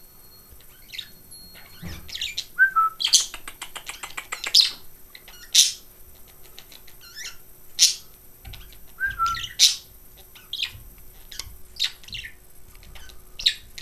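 Pet budgerigars chirping and chattering in short, high calls at irregular intervals, with a quick rattling run of calls about three seconds in.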